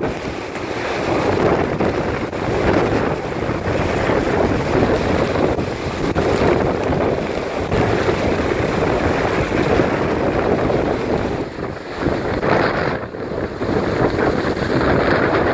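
Typhoon-force wind blowing hard and buffeting the microphone, surging and easing in gusts, with a brief lull about twelve seconds in.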